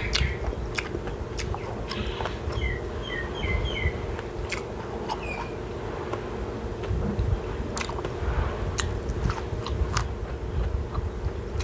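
A person biting and chewing food close to the microphone, with irregular crisp crunches. Small birds chirp briefly between about two and four seconds in.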